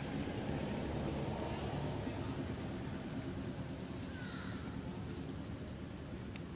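Steady low rumble of background noise.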